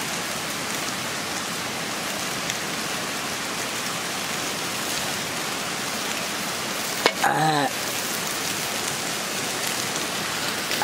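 Pork slices sizzling on a wire grate over a charcoal grill: a steady hiss with crackling from the charcoal. A sharp click about seven seconds in, followed by a brief vocal sound.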